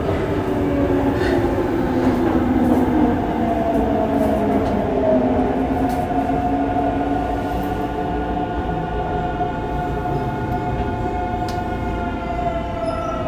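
Yokohama Municipal Subway 3000A train running, its Mitsubishi GTO-VVVF inverter and traction motors whining in several steady tones that shift slowly in pitch, over the rumble of wheels on rail.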